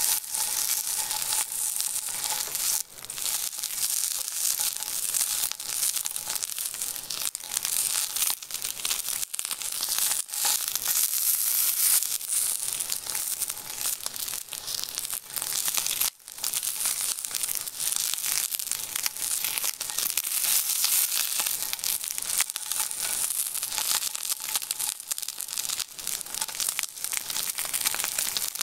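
Thick beef sirloin steak searing in a hot cast-iron pan: a loud, dense sizzle and crackle of fat and juices, dipping briefly twice.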